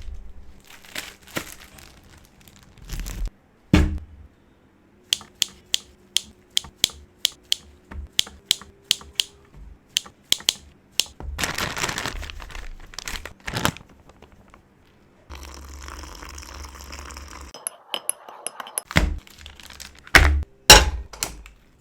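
Kitchen food-preparation sounds for a potato snack: crinkling, a run of sharp, evenly spaced taps about two a second, a stretch of steady hiss, and several loud knocks near the end.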